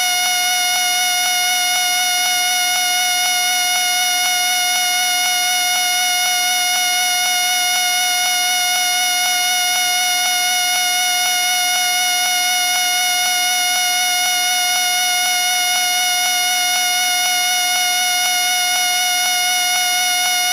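A whistle sounding one steady, unbroken high tone with a faint regular wobble beneath it.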